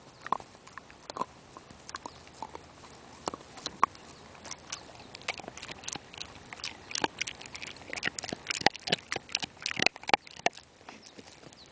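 A dog chewing a bone: irregular clicks and crunches of teeth on bone, coming faster and louder in the second half, then thinning out near the end.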